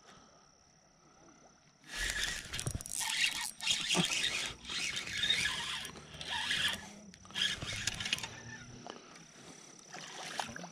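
Spinning reel cranked in quick bursts while a small bass is reeled in, a scraping whir of reel and line that starts about two seconds in and eases off in the second half.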